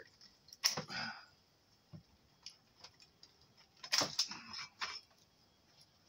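Plastic wiring-harness connectors and wires being handled and unplugged, giving a few sharp clicks and short rattles, the loudest just under a second in and again around four seconds in.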